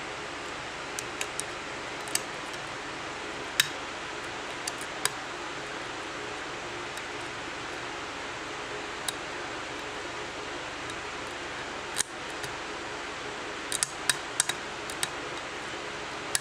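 Metal lock pick and tension wrench clicking inside an Asec padlock's keyway during single-pin picking: scattered sharp ticks, with a quick cluster near the end, over a steady background hiss.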